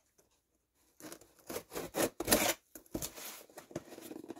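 Cardboard mailing box being cut and scraped open along its taped seam: a run of short rasping scratches that begins about a second in.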